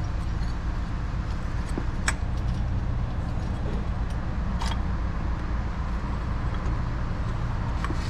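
A steady low hum, with two sharp metallic clicks about two seconds in and again near the middle, as metal parts are handled while a pulley is worked into place in an engine bay.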